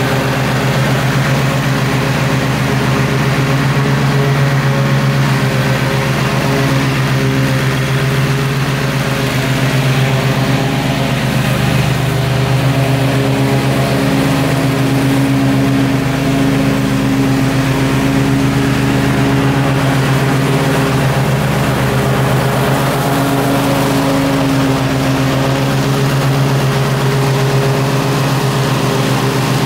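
Gravely zero-turn riding mower running steadily while mowing thick grass: a continuous engine hum whose pitch drifts slightly in the middle as the mower moves and turns.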